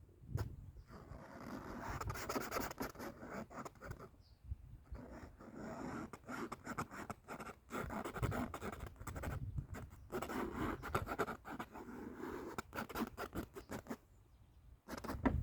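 Scratching strokes of a drawing or painting tool working across a surface, in irregular runs with short pauses.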